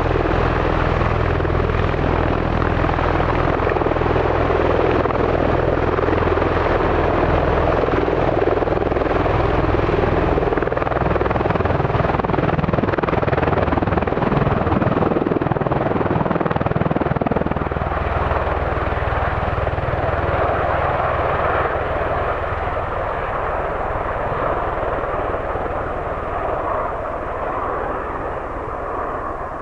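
MV-22 Osprey tiltrotor running, its twin turboshaft engines and proprotors giving a steady low drone under a wide rush of noise, fading over the last several seconds.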